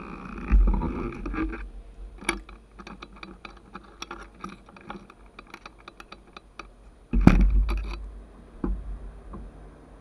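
Irregular light clicks and taps from a motorcycle being handled at a standstill, with its engine not running, then one heavy thump about seven seconds in and a softer one a little later.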